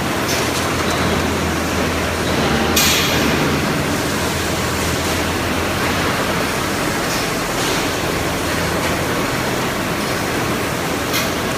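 Seam welding machine running in production: a steady industrial din with a low hum underneath, broken by three short hissing bursts a few seconds apart.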